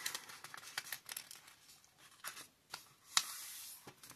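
A sheet of paper being folded and creased by hand: faint, scattered rustles and crinkles, with a sharper crack followed by a short rub about three seconds in.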